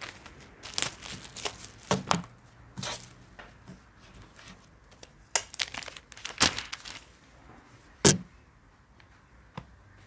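Plastic shrink-wrap being torn and peeled off a cardboard box, crinkling in irregular bursts, then a plastic protective sheet rustling as it is lifted away. A single sharp snap comes just after 8 seconds in, the loudest moment.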